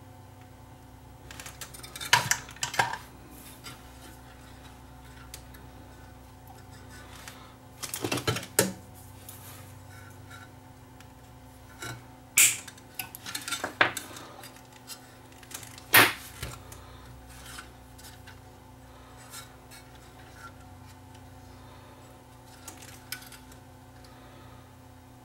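Scattered sharp metallic clicks and clinks of small hand tools and capacitor leads knocking against a radio's metal chassis and wiring, in clusters a few seconds apart.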